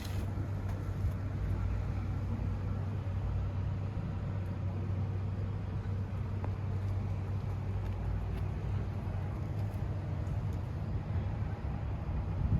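A compact excavator's diesel engine running steadily with a low hum.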